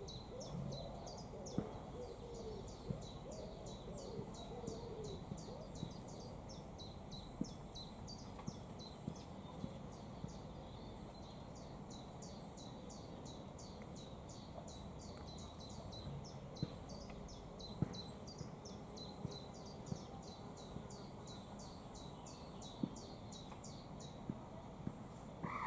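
A small bird calling one short, high-pitched note over and over, about three or four times a second, over a low background hum with a few faint clicks.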